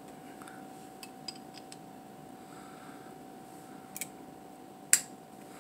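Light clicks of an out-the-front knife's metal parts being handled and fitted together, then a louder click about four seconds in and a sharp, loud click about a second later.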